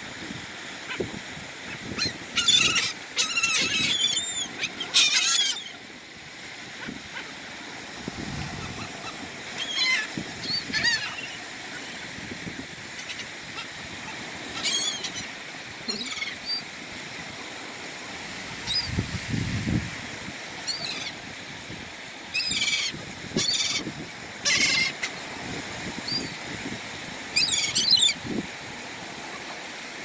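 Gulls calling overhead in repeated bursts of sharp, high cries, with a few quieter stretches between the bursts.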